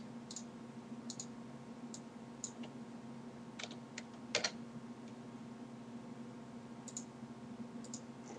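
Computer keyboard keys and mouse buttons clicking now and then, about a dozen irregular taps with the loudest a quick pair about four and a half seconds in, over a low steady hum.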